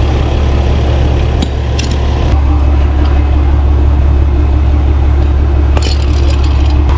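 Tow truck's engine running steadily to power its winch, a loud low drone, with a few metallic clicks and clanks from the winch rigging, about a second and a half in and again near the end.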